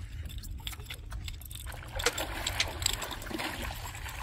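Water splashing at the side of a boat as a hooked fish thrashes at the surface, with a run of sharp splashes starting about halfway through, over a steady low wind rumble.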